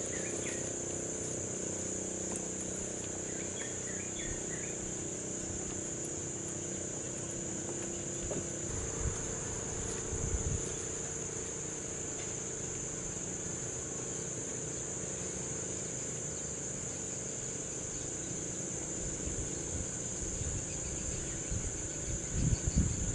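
Insects droning steadily in one high, unbroken band, with a few low thumps about ten seconds in and again near the end.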